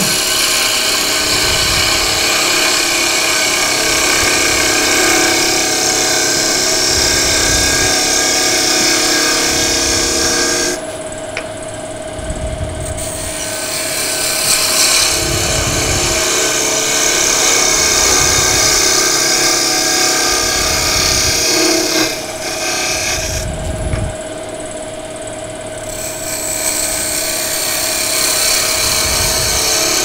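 Wood lathe spinning a small wooden workpiece while a turning tool cuts it, a steady hiss of shavings over a constant hum. The cutting noise drops away briefly twice, about 11 and 24 seconds in, leaving mostly the hum before the cut resumes.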